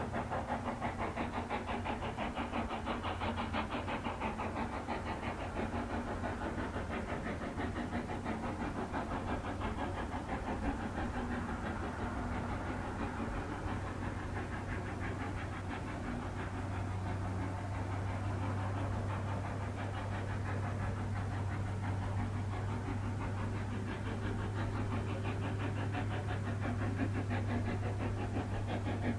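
Brienz Rothorn Bahn rack steam locomotive No. 2 working hard uphill, its exhaust beats chuffing in a steady, rapid, unbroken rhythm. A low steady drone grows stronger about halfway through.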